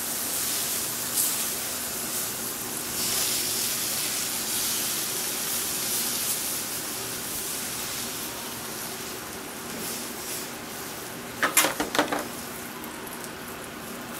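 Water sizzling on a hot flat-top griddle as a wet rag is wiped across the cooking surface, a steady hiss that slowly dies down. Near the end comes a quick clatter of sharp knocks.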